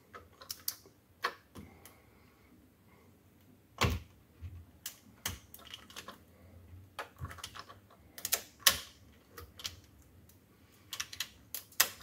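Irregular plastic clicks and taps as a 3D-printed articulated flexi wolf is worked loose from a printer's textured build plate, its jointed segments clacking. The sharpest click comes about four seconds in, with flurries of clicks about two-thirds of the way through and again near the end.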